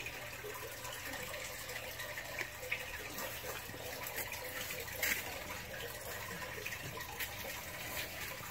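Steady running water, with a few light clicks, the loudest about five seconds in.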